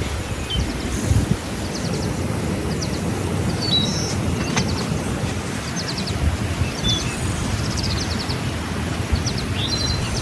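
Outdoor rural ambience: small birds chirping in short, high trills about once a second over a steady low rumble of background noise.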